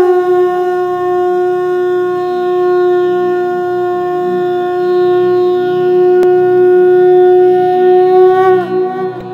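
Conch shell (shankha) blown in one long, steady blast that sags slightly in pitch just before it stops near the end.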